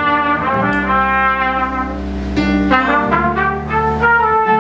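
Music led by brass instruments playing held notes that step from pitch to pitch over a steady bass line.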